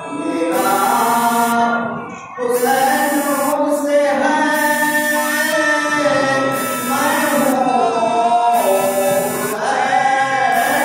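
A man chanting a mourning lament, unaccompanied, in long drawn-out held notes that rise and fall slowly, with a short breath break about two seconds in.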